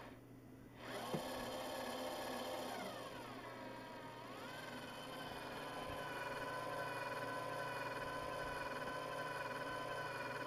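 Small electric motor turning a model sternwheeler's paddlewheel through a toothed belt drive, its speed set by an ESC and radio. It spins down almost to a stop at the start and speeds up again about a second in with a click. The pitch dips and climbs back a few seconds in, then the motor runs at a steady whine.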